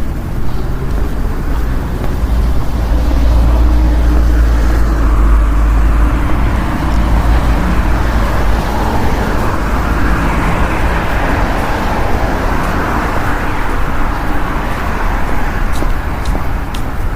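Street traffic ambience: car engines and tyres passing, a steady low rumble that swells for several seconds in the middle as a vehicle goes by.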